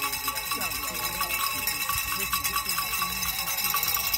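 Cowbells being rung continuously, a quick run of metallic clanks, over a low murmur of voices.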